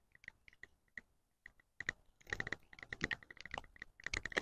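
Mora Companion knife blade cutting into a dry wooden stick in a series of short, crisp strokes, sparse at first and coming quicker and closer together from about two seconds in.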